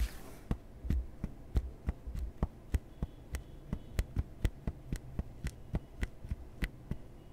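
Regular sharp ticks, about three or four a second, over a faint low hum, with a few heavier low thumps in the first couple of seconds.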